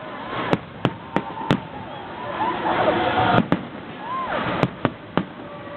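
Aerial fireworks bursting in a show: about nine sharp bangs at uneven intervals, some close together, over the voices of a watching crowd.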